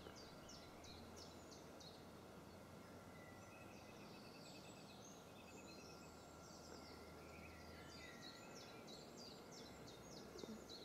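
Near silence with faint birdsong: a quick series of short high notes at the start, scattered chirps in the middle and another quick series near the end.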